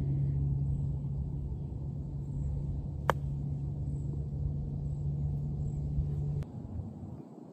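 A golf wedge strikes a ball once in a chip shot: a single sharp click with a short ring about three seconds in, over a steady low hum.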